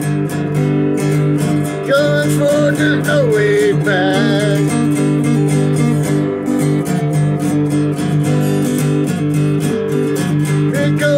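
Acoustic guitar strummed steadily while a harmonica plays a bending melody line about two seconds in and again near the end.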